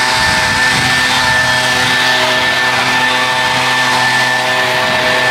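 Stihl handheld gas leaf blower running steadily, blowing and scattering fresh grass clippings across a mowed lawn.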